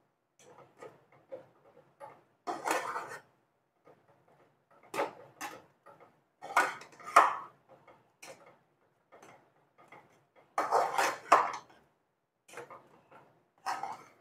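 Perforated metal spoon scraping and knocking against a metal kadhai as a thick semolina dough is stirred and pressed in irregular strokes. The loudest scrapes come about 3, 5, 7 and 11 seconds in.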